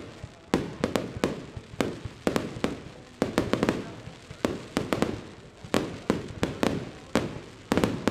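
Fireworks display: a rapid, irregular run of sharp bangs, about two or three a second, each trailing off in a short echoing rumble.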